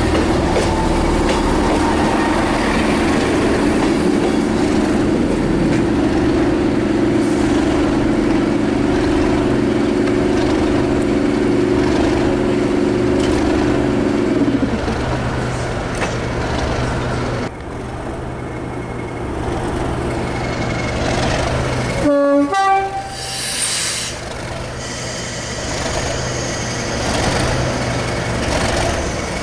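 Diesel train engines running at a station with a steady droning hum, a class 158 diesel multiple unit standing at the platform. About two-thirds through, a train horn sounds briefly. Near the end a Network Rail class 97/3 (class 37) diesel locomotive is idling with a low steady hum.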